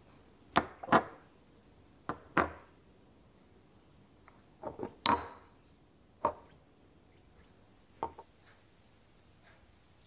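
Small glass essential-oil bottles being set down on a hard surface: about eight short knocks and clinks, the loudest about five seconds in with a brief glassy ring.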